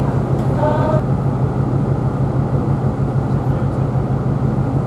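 Steady low hum of a diesel-electric ferry's engines under way, with a constant rushing noise; a voice is faintly heard in the first second.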